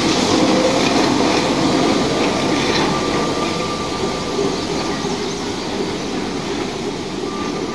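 Geared steam locomotive and its train running past, a steady loud mechanical noise that eases off a little. A faint high squeal sounds in the middle.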